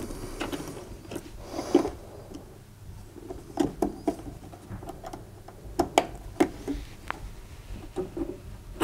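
Irregular small clicks, scrapes and light knocks of hands and pliers working the motor's retaining spring back into place on a tumble dryer's drive motor.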